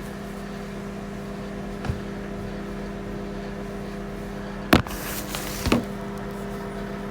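Microwave oven running with a steady hum. A few knocks from kitchen items being handled cut across it: a faint one about two seconds in, a sharp loud one near five seconds in, and another just after.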